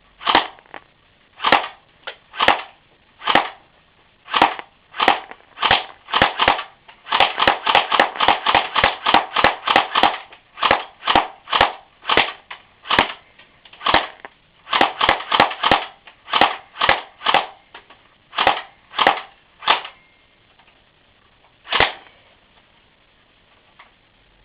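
Airsoft gun firing BBs: single shots about a second apart, a fast rapid-fire run of about six shots a second, then more singles and one last shot near the end.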